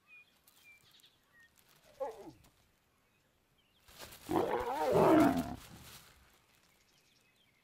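Lions snarling as a lioness fends off an approaching male: a short snarl that falls in pitch about two seconds in, then a louder, harsh snarl lasting about two seconds from around four seconds in.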